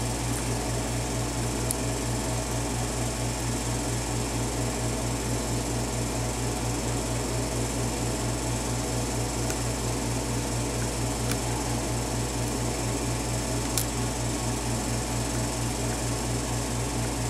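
Steady motor hum with a low, even pulsing throb, like a fan running. A few faint metal clicks come from a hook pick working the pin stack of a padlock.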